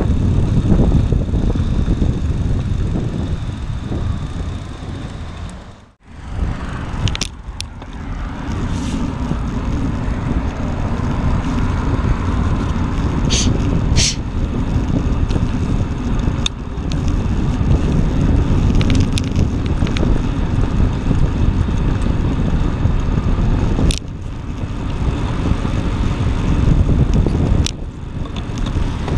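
Wind buffeting an action camera's microphone during a bike ride, a heavy low rumble that drops away briefly about six seconds in. Road traffic runs alongside, and a few sharp clicks and rattles come from the bike.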